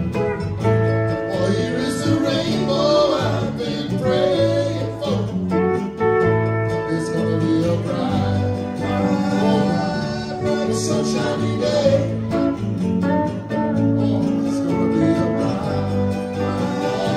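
Live band playing: acoustic and electric guitars, pedal steel guitar, bass guitar and drums, with a steady beat.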